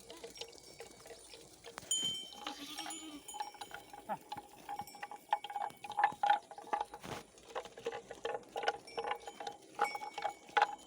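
Small neck bells on goats clanking and ringing in irregular, quick strikes, busier in the second half.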